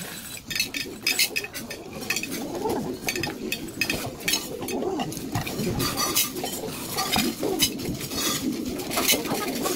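Dried beans clattering as they are scooped by hand and dropped into a small bowl, a dense, irregular patter of quick clicks.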